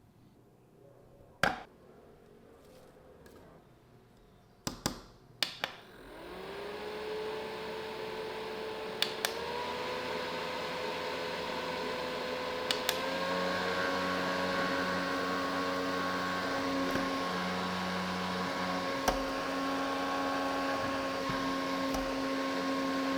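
Mini desk fan: a few clicks, then its small motor whirs up to speed. It steps up in pitch twice, each time just after a button click, as it is switched through its higher speeds.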